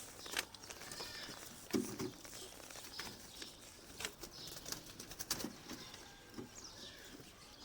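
Pigeons moving about: scattered sharp taps and wing flutters, with a short low sound about two seconds in and faint high chirps near the end.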